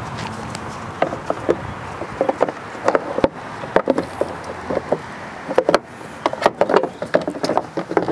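Hard plastic air-filter housing cover and its intake duct knocking and clicking as they are handled and fitted back over a newly seated engine air filter. The sharp, irregular clicks and knocks start about a second in and come thickest near the end.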